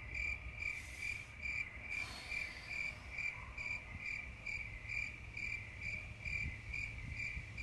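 Crickets chirping, a high chirp repeating evenly a little over twice a second.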